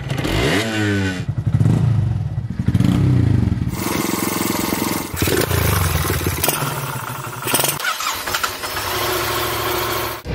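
Motorcycle engines running, several short recordings cut one after another, with a rising rev in the first second.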